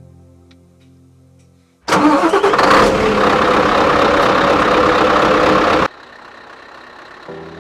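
Scania R 560's V8 diesel engine starting: a sudden loud burst about two seconds in, running hard for about four seconds before cutting off abruptly. A quieter steady hum follows, and faint music comes in near the end.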